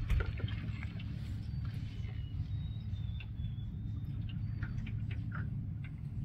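Low, steady hum of a boat motor running, with scattered small clicks and a few faint high chirps over it.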